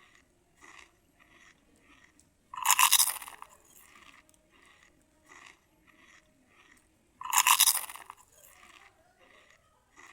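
A person biting and chewing crisp food close to the microphone: two loud crunchy bites, about two and a half and seven and a half seconds in, with softer chewing of about two chews a second between them.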